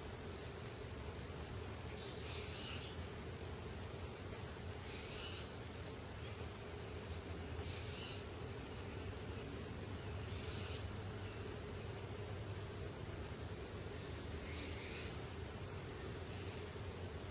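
Spotted towhee calling: a short buzzy call repeated every two to three seconds, over a steady low background hum.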